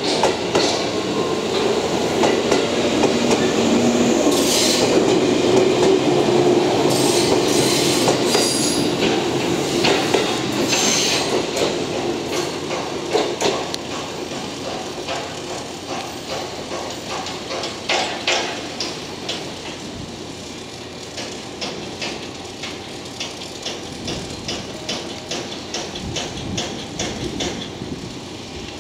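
JR West 117 series four-car electric train pulling out and moving away: traction motor and wheel rumble that fades steadily, with a few brief high wheel squeals in the first ten seconds or so. As it recedes, a regular clicking of wheels over rail joints and points remains.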